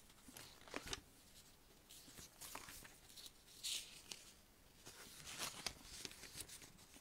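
Thin Bible pages being leafed through by hand: faint paper rustles and several short, sharp flicks as the pages turn.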